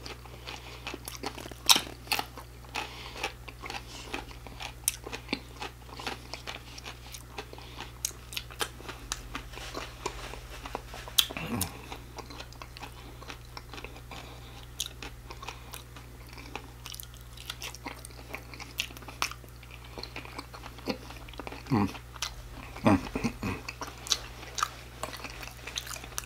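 Close-miked chewing and biting of sauced, batter-fried shrimp and fries, with wet mouth smacks and many small sticky clicks. A few short, low, falling hums come about halfway through and again near the end.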